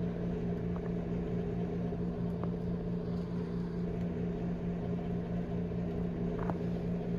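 A steady low mechanical hum from a running appliance, unchanging throughout, with a few faint soft clicks.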